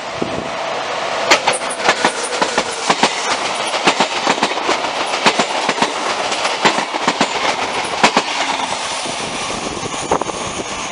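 Locomotive-hauled passenger train passing close by: a steady rumble of wheels on rail with many sharp clicks as the coach wheels run over rail joints, easing off near the end.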